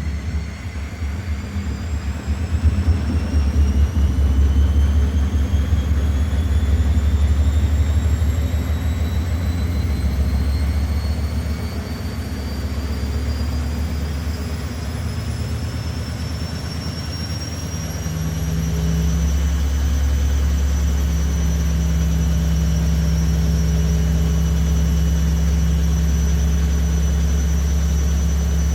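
Washing machine spinning up: the motor's whine rises steadily in pitch for about twenty seconds, then levels off as the drum holds its spin speed. Under it a loud low hum grows stronger near the twenty-second mark.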